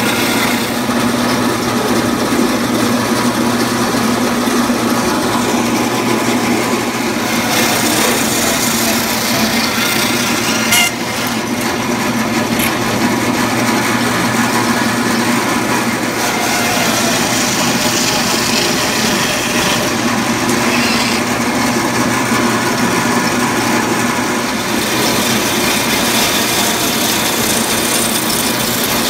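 Guide Gear meat band saw running steadily, its blade cutting through deer ham and loin, meat and bone. The cutting turns harsher at times, with one sharp click about eleven seconds in.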